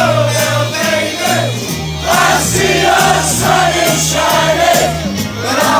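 Crowd of football supporters singing a chant together in unison, loud and continuous.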